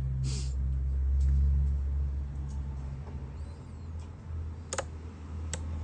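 A steady low hum with two sharp clicks near the end.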